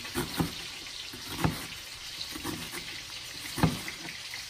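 Chef's knife chopping onion on a plastic cutting board: a few irregular knocks of the blade on the board, the loudest about one and a half and three and a half seconds in, over a faint steady hiss.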